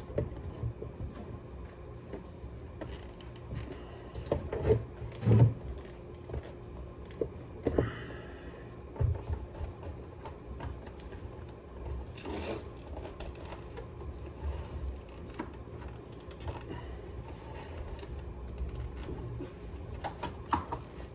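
Hands working at a PlayStation 5's plastic side cover: scattered clicks, knocks and creaks of plastic as it resists coming off, loudest about five seconds in, over a faint steady hum.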